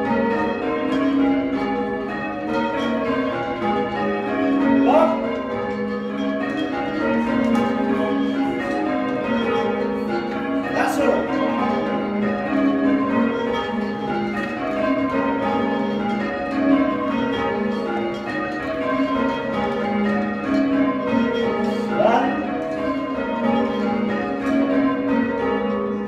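A ring of six church bells, cast in 1789 by Robert Dalton, being rung in changes with a soft, pleasant tone: a steady stream of overlapping strikes.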